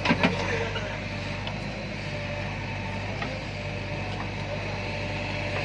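Diesel engine of heavy machinery running steadily, with a couple of short knocks just at the start.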